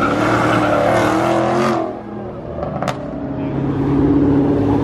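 Car engines under hard acceleration: one revving loudly for about two seconds and then falling away, then a white Corvette's V8 growing louder as it drives past close by.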